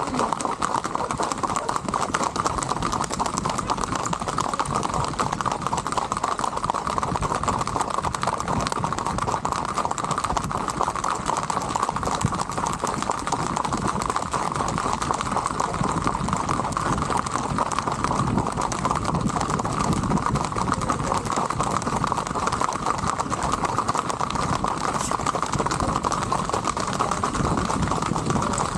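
Many horses' shod hooves clip-clopping fast and continuously on asphalt as a group rides together at the brisk traqueo gait.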